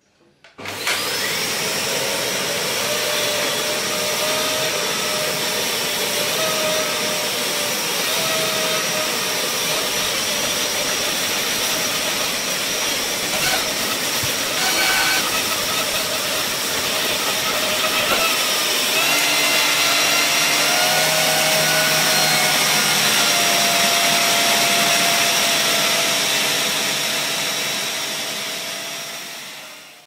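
Dyson Cinetic Big Ball Animal+ canister vacuum cleaner switching on about half a second in, its motor whine rising quickly to speed, then running steadily while the floor head is pushed over carpet. Its tones shift a little about two-thirds of the way through, and the sound fades out near the end.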